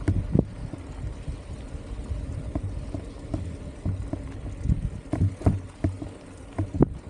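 Mountain bike riding over a trail, heard from a helmet-mounted camera: a steady low wind rumble on the microphone with irregular knocks and rattles from the bike, several close together in the last couple of seconds.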